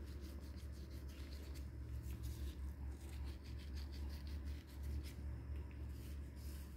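Coarse sea salt rubbed between fingers and sprinkled over raw steaks: a faint, dry, scratchy crackle in clusters, over a steady low hum.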